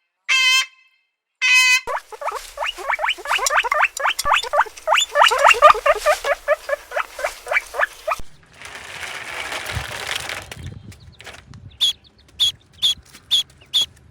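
Young poultry peeping: a rapid run of short rising peeps, then a few seconds of rustling hiss, then single high peeps about two or three a second.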